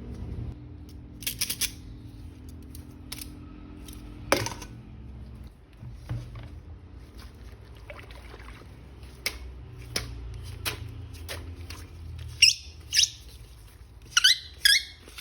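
Quiet background music with scattered sharp clicks and taps, and a run of short, high, squeaky chirps near the end.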